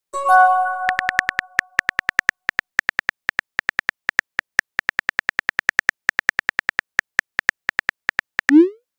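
Simulated smartphone keyboard clicks typing out a text message, a rapid even run of taps, opened by a ringing message chime of several tones and closed near the end by a short rising whoosh as the message is sent.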